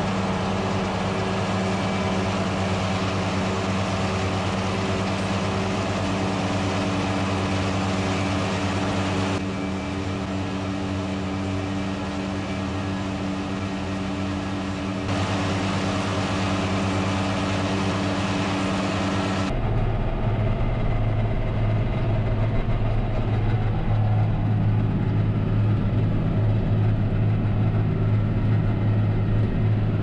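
Tractor engine running steadily under load while pulling a trailed mower-conditioner through alfalfa. About two-thirds of the way in the sound changes to a deeper, steadier hum.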